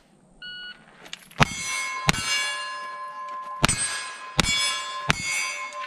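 A shot timer's start beep, then five gunshots, the first two about 0.7 s apart and the last three in quick succession. Each shot is followed by steel targets ringing on.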